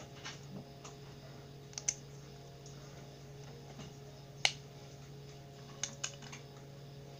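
Plastic Lego bricks clicking as they are handled and snapped together: a few scattered light clicks, with the sharpest and loudest one about four and a half seconds in.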